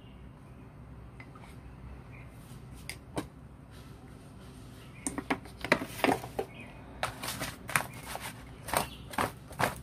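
Clattering of a plastic tray and spoon on a tiled counter while small fish are coated in flour: a few faint clicks at first, then many sharp, loud knocks and taps close together from about halfway through.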